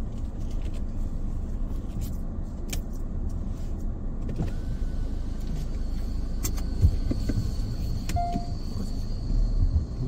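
Hyundai Palisade SUV driving slowly over a rough concrete farm road, heard from inside the cabin: a steady low rumble of engine and tyres, with a few faint clicks and a sharper knock about seven seconds in.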